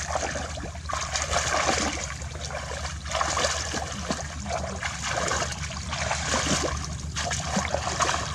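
Shallow water splashing and trickling, swelling and easing about once a second as hands stir through it to feel for fish.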